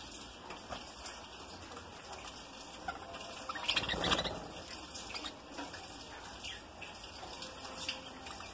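Budgerigars chattering in short chirps, with a louder flutter of wings about four seconds in as one flies close past.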